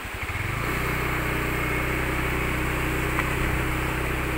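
Motorcycle engine picking up from slow pulsing to a steady run about half a second in, then running evenly as the bike rides along.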